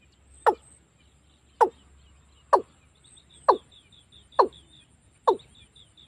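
Watercock calling: a series of short notes, each falling sharply in pitch, about one a second and gradually quickening. This is the call that bird trappers play back as a lure for watercocks.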